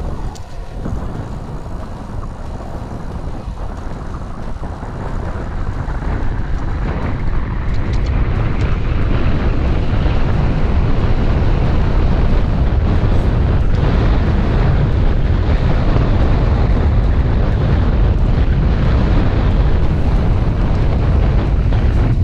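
Wind buffeting the camera's microphone on a moving road bike: a heavy, even rumble that grows louder over the first eight seconds or so, then holds steady.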